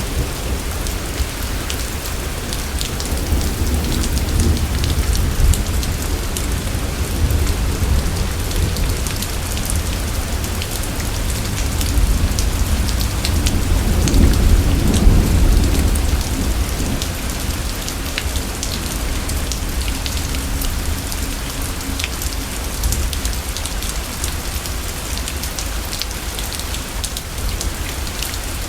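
Steady rain with sharp drips and patter, under a low rolling rumble of thunder that swells about halfway through and then slowly fades.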